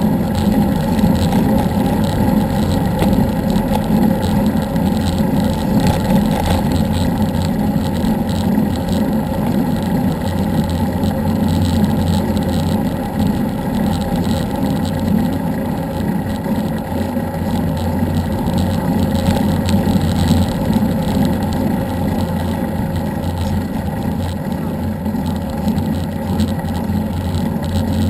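Steady running noise of a moving vehicle, with a constant low engine-like hum and road and wind noise, picked up by a camera mounted on the vehicle as it travels at an even speed.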